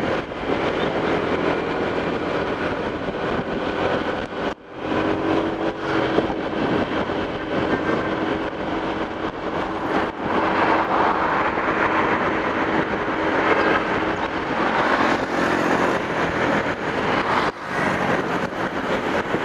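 Road traffic on a busy highway, heard while travelling along it: a continuous rush of engines and tyres with a steady hum. The sound drops out for a moment twice, about four seconds in and near the end.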